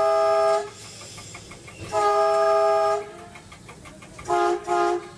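Horn of a MAN metre-gauge diesel railcar sounding for a level crossing ahead. A long blast ends about half a second in, a second blast of about a second follows two seconds in, then two short blasts on a slightly lower chord come near the end. Quieter railcar running noise fills the gaps between blasts.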